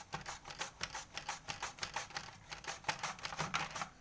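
A potato being pushed rapidly back and forth over the stainless-steel blade of a Tupperware Mando Chef mandoline slicer, set to its thinnest setting for potato chips. The slicing strokes come fast and even, several a second, and stop near the end.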